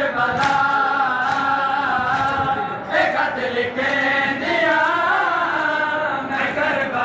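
Crowd of men chanting a noha together in unison, a Shia Muharram lament for Imam Husayn, in long held notes that slide slowly up and down.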